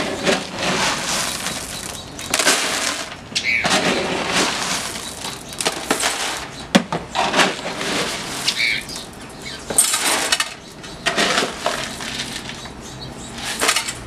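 Dry kibble pellets scooped with a measuring cup and poured into a plastic tub, rattling and clattering in repeated bursts, with one sharp click about halfway.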